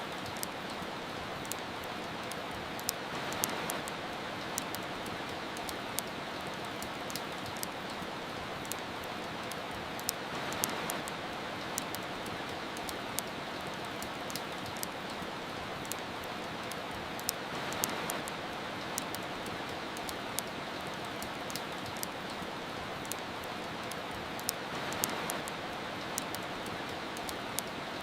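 Steady rain with frequent sharp crackles and pops from a wood fire in a fireplace. The rain swells gently about every seven seconds.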